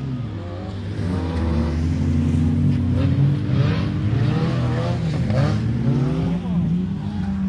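Autocross race car engines revving hard on a dirt track, the pitch rising and dropping again and again through gear changes, getting louder about a second in.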